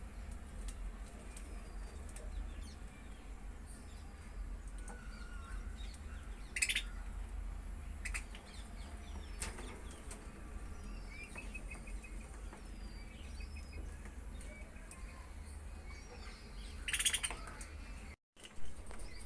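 Budgerigars chirping quietly in short, scattered calls, with two louder, harsh, rasping calls, one near the middle and one near the end, over a steady low hum.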